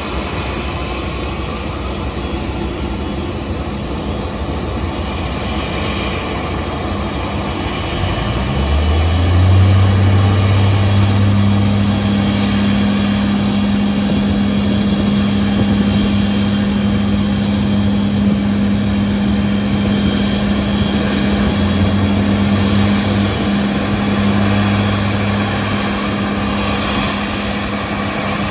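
Airbus A350-900's Rolls-Royce Trent XWB jet engines running at taxi power, a loud steady jet noise. About eight seconds in, a deep steady drone joins and holds to the end.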